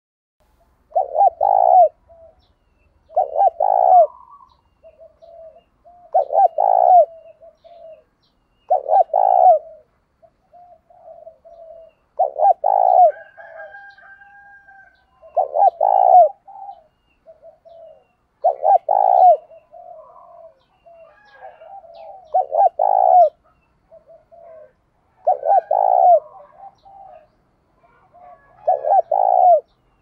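Spotted dove cooing: a loud, low coo phrase about every three seconds, with softer coos in between.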